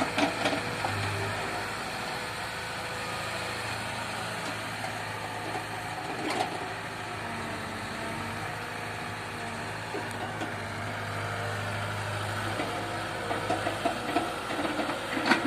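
Diesel engine of earthmoving machinery running steadily at an even idle-like pace, with a few short knocks.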